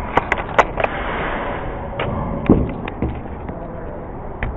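Airsoft gunfire: a quick run of four sharp snaps in the first second, then a few scattered clicks and one heavy thud about two and a half seconds in.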